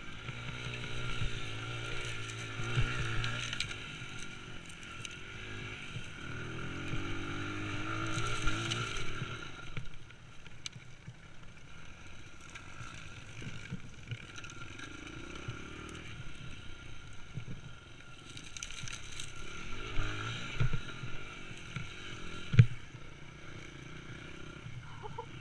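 A motorcycle engine running and revving up and down, dropping away about ten seconds in and returning near the end, with a sharp knock shortly before the end.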